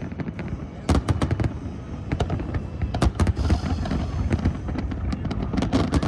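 Fireworks display finale: a rapid, irregular string of shell bursts and crackling bangs over a continuous low rumble, heard through the recording being reacted to.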